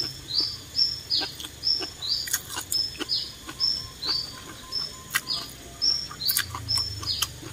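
A bird chirping over and over, about three short high calls a second, each ending in a quick drop in pitch. Now and then come soft clicks of chewing and noodle slurping.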